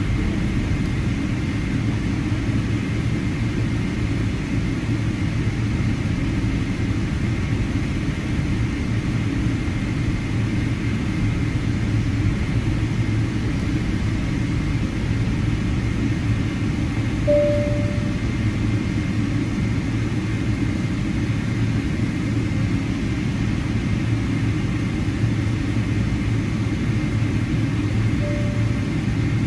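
Cabin noise of a Boeing 777-300ER taxiing, its GE90-115B engine running at taxi power: a steady low rumble with a faint high steady whine. Two short beeps sound, one just past the middle and one near the end.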